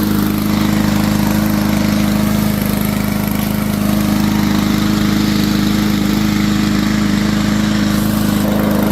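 Powermore single-cylinder engine of a Yard Machines push mower running at a steady speed, sounding pretty good now that its clogged carburettor main jet has been cleaned out.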